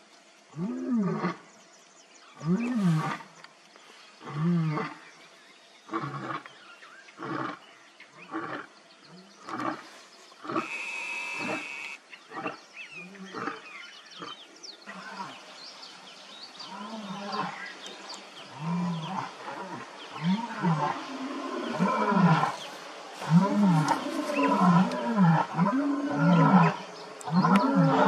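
Male lions roaring: a long run of low, moaning calls, one every second and a half or so, coming closer together and louder near the end.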